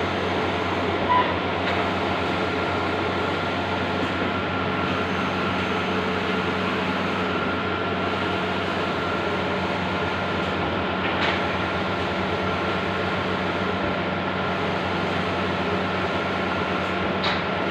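Large-format outdoor banner printer running: a steady mechanical drone with a constant high whine. A short beep comes about a second in, and a couple of faint clicks come later.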